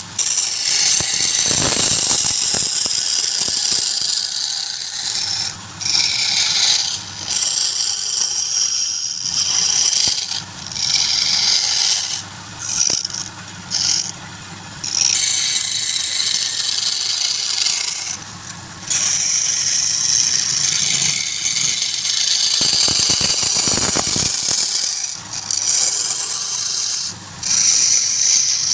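A turning tool cutting wood on a running lathe, in passes that break off briefly again and again, over a steady low hum.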